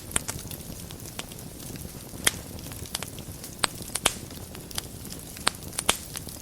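Wood fire burning in a fireplace: a steady low rumble of flames with frequent sharp crackles and a handful of louder pops.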